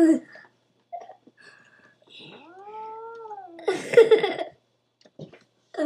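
House cat giving one long meow that rises then falls, about two seconds in, followed straight after by a louder, rougher cry.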